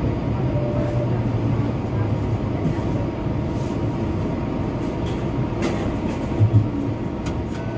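Cabin sound of a Bombardier Flexity Outlook low-floor streetcar running along its track: a steady rumble and hiss of wheels on rail with a low hum, and a few light clicks around the middle.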